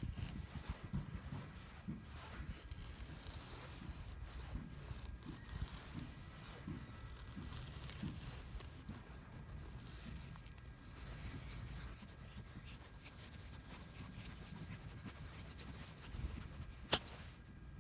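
Irregular scraping and rubbing sounds with one sharp click about a second before the end.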